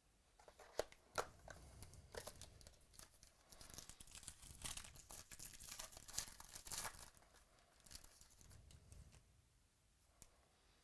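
Faint tearing and crinkling of wrapping as a box of football trading cards is opened and its pack unwrapped, with small sharp clicks among the rustle. The rustling dies down about nine seconds in.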